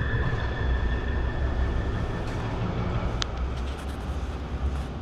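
A heavy engine running with a steady low rumble, over a steady high whine that stops with a click about three seconds in.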